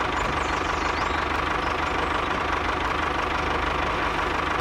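Miniature model tractor's engine running steadily with a fast, even chugging as it drives.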